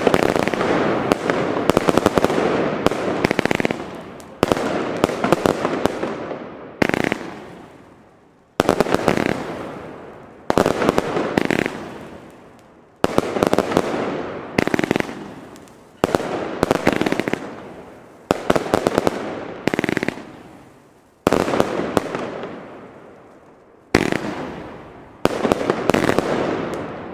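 Broekhoff Magnum W-Triple Layer firework battery firing salvo after salvo. Each volley is a sudden cluster of launches and bursts that dies away over a second or two, and a new one comes about every two seconds.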